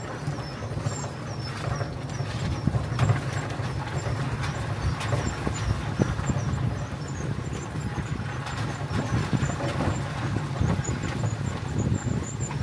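Wheeled dog-sled training cart rolling over a rough dirt trail: a steady low rumble with continual small knocks and rattles, and faint high squeaks over it.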